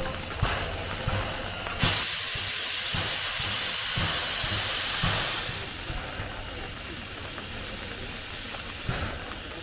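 C11 tank steam locomotive venting a jet of steam at track level: a loud hiss that starts abruptly about two seconds in, holds for about three and a half seconds, then dies away. A few faint knocks are heard before and after.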